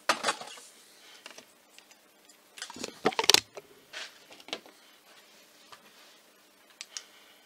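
Scattered clicks and light knocks of small objects being handled, with a cluster of louder knocks about three seconds in.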